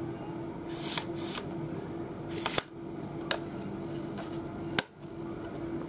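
Plastic case of a Souness SNI-F100 portable radio being handled and turned over in the hands: a few brief rustles and clicks, with a sharp click near the end.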